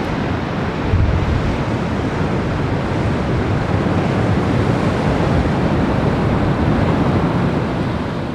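Wind buffeting the microphone over the steady wash of ocean surf breaking on rocks, a constant rushing noise with a stronger gust about a second in.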